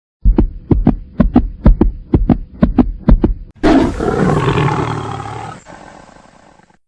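Outro sound effect: about a dozen deep beats, roughly three or four a second, then a big-cat roar that swells about halfway through and fades away.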